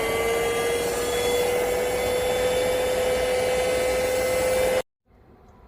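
Airbot Supersonics Aura cordless stick vacuum cleaner running, its motor giving a steady whine that creeps slightly higher over a rushing of air. It cuts off abruptly near the end.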